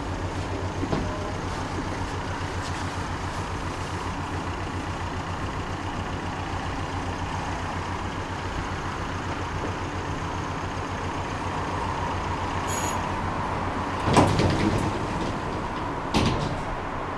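A tram in motion: a steady rumble with a low pulsing hum and a thin steady whine. Near the end come two loud clunks about two seconds apart.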